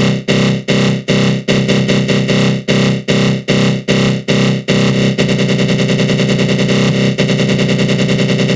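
Synthesized attack-growl sound effect: a loud, buzzing synth tone made with the GMS synth in FL Studio Mobile and run through a flanger. It is chopped into short pulses about twice a second, then about five seconds in switches to a fast, rattling pulse.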